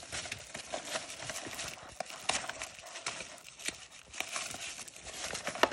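Protective paper wrapping rustling and crinkling as it is unwound from a handbag's handle, with irregular handling taps and one sharp click near the end.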